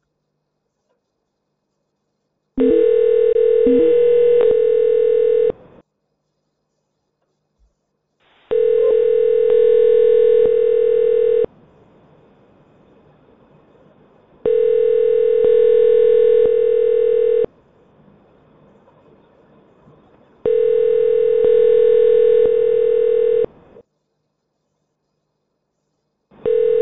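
Telephone ringback tone on an outgoing call: a steady ringing tone comes four times, about three seconds each with about three-second gaps, while the call rings unanswered at the far end.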